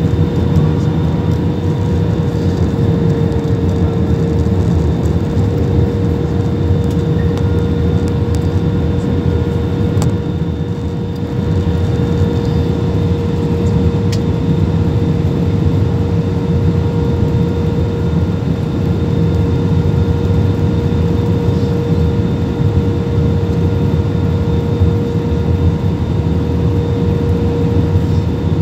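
Cabin noise inside an Airbus A320 airliner on its descent: the steady rush of the engines and airflow, with a steady hum-like tone running through it. The noise dips slightly for a moment about ten seconds in.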